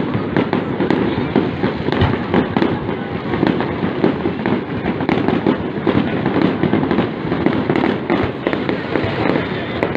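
Fireworks going off in a continuous barrage: many rapid sharp bangs and crackles over a steady rumble, with no let-up.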